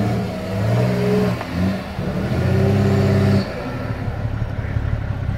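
An off-road 4x4's engine revving in bursts as it works through a section, the longest and loudest burst a little over a second about halfway in, then dropping back to a lower running sound.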